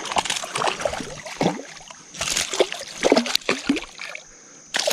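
Creek water splashing and sloshing in irregular bursts as a hooked smallmouth bass thrashes at the surface while being landed, loudest between about two and four seconds in.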